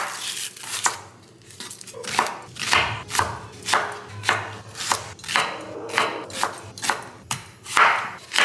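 Chef's knife chopping an onion on a wooden cutting board, then cutting through an apple near the end. The strokes come roughly twice a second after a short pause about a second in, each a crisp knock of the blade on the board.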